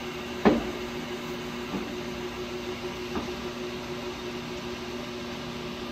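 Gear-change levers and gearing on the headstock of a large LeBlond gap bed lathe being shifted: one loud metallic clunk about half a second in, then two lighter clicks, over a steady motor hum.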